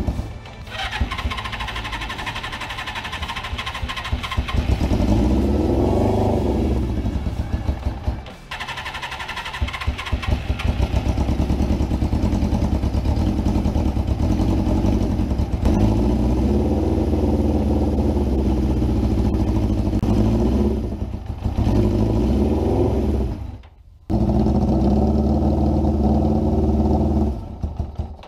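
Suzuki GS550's air-cooled inline four-cylinder engine running and being revved twice, sounding bad. One cylinder isn't firing, so it runs on three: one exhaust stays cold, traced to a fouled spark plug.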